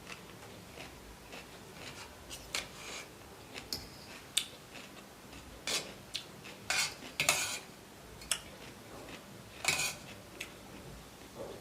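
Cutlery clinking and scraping against a plate during eating, in irregular short clicks and brief scrapes, the loudest a little past the middle.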